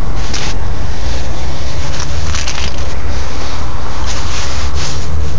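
Loud, steady low rumble of wind buffeting a phone's microphone, with a few brief rubbing or scraping noises about half a second in, around two seconds and near the end.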